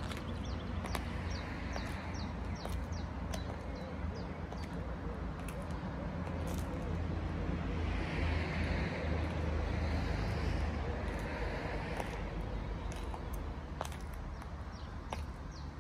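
Christian Louboutin So Kate stiletto heels clicking step by step on paving stones, the clicks sharp and spaced out, over a steady low outdoor rumble that swells for a few seconds in the middle.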